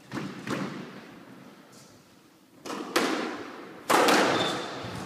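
Squash ball struck by rackets and smacking off the court walls: several sharp hits, each with an echoing ring in the enclosed court, the loudest about four seconds in.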